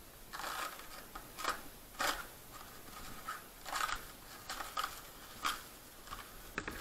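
Plastic bubble wrap crinkling and rustling in a series of short, irregular bursts as hands pull and peel it off the packed rack.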